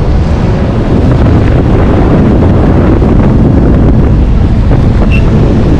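Strong wind buffeting the camera microphone, with surf washing through the shallows beneath it.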